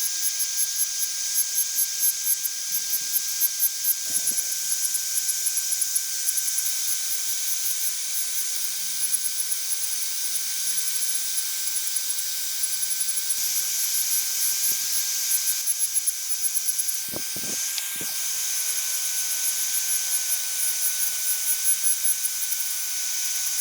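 Electric grinder running steadily: a continuous high whine over a bright hiss, with a fine fast crackle in the top end.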